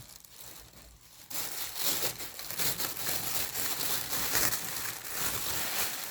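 Thin transparent plastic bag crinkling steadily as it is handled and cut with scissors, starting about a second in.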